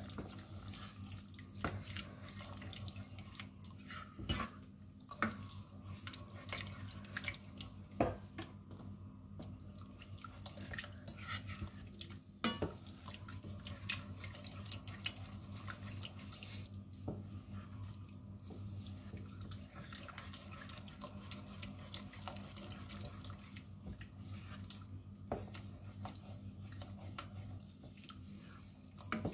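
Wooden spoon stirring a thickening milk-and-flour sauce in a stainless steel saucepan: wet swishing with frequent light scrapes and taps against the pan, over a steady low hum.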